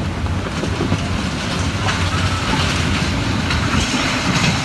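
Gale-force windstorm gusts: a continuous rushing roar with heavy low rumble, building toward the end, with a few scattered clatters of blowing debris.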